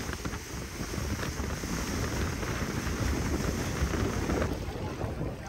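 Wind buffeting the microphone: a steady rushing noise with low rumble.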